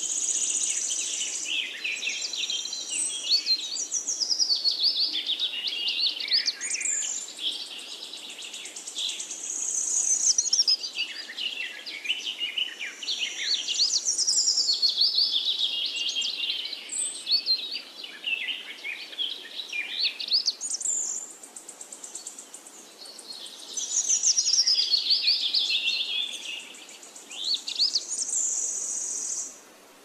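Birdsong: long, rapid, warbling phrases of high chirps and trills, broken by short pauses every few seconds.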